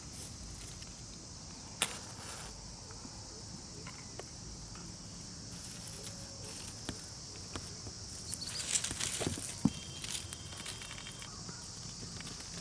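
Steady high-pitched insect drone, with a few sharp clicks and a short burst of rustling and crackling about nine seconds in.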